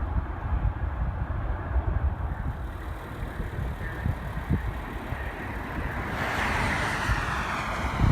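Jet airliner passing close by: its roar swells about six seconds in over a steady low rumble.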